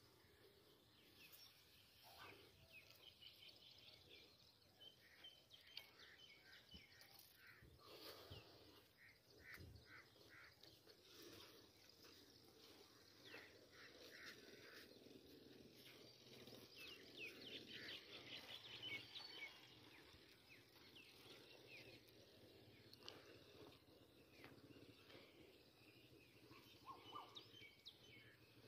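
Quiet outdoor background with small birds chirping on and off, busiest about two-thirds of the way through.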